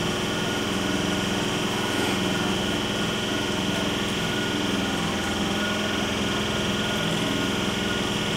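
A standing conventional MEMU electric train humming steadily, its onboard machinery running at a constant pitch with a steady high whine over a low drone.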